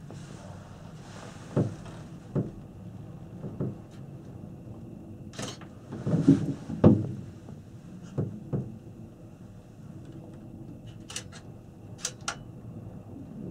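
Interior of a Panoramic Mont Blanc gondola cabin in motion: irregular knocks and creaks from the cabin bucking on the rope over a low steady hum, with the loudest pair of knocks about six to seven seconds in.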